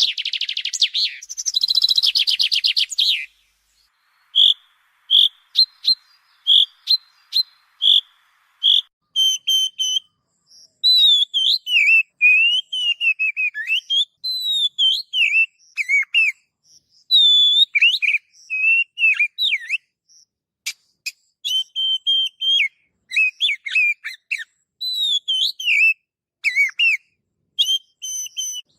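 Songbird song: a rapid chattering trill for about three seconds, then a string of short, clear whistled notes, then varied whistled phrases with rising and falling slides.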